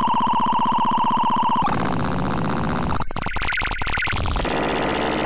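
Synthetic buzzing tone of a Prusa i3 MK2S G-code toolpath turned into an oscilloscope XY audio signal. It starts as a steady, even tone while a simple outline is traced. About a second and a half in it changes to a rougher, noisier buzz, with a brief dropout around three seconds.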